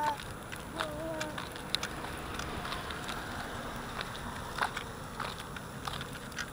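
Baby stroller rolling over paved ground: a steady rumble with scattered small clicks and rattles, and wind on the microphone. About a second in there is one short, quiet voice sound.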